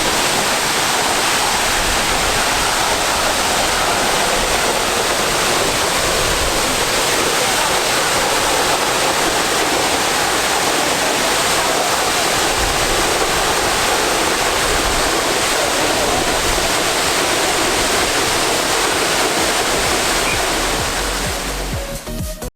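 Steady rush of Grizzly Falls, a waterfall, heard close by; it fades out near the end.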